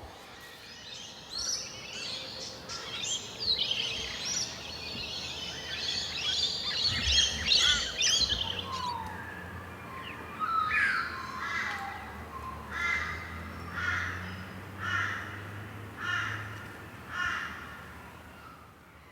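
Birds calling in forest: a dense mix of chirps and whistles for the first several seconds, then one bird repeating a short call about once a second.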